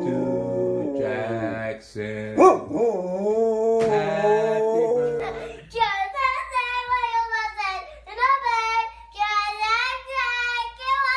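A dog howling along with a person singing. About six seconds in this changes to a yellow Labrador howling in long, gliding calls together with a small child singing.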